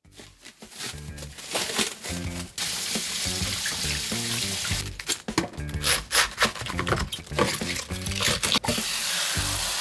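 Background music with a stepping bass line, over kitchen sounds: short clatters, and a steady hiss from about two and a half seconds in and again near the end.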